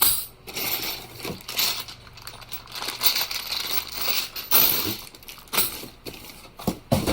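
Plastic packaging crinkling and rustling as tools are unpacked by hand, with a few sharp knocks in the second half.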